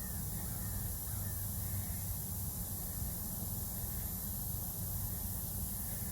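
Steady background hiss over a low rumble, with no distinct event standing out.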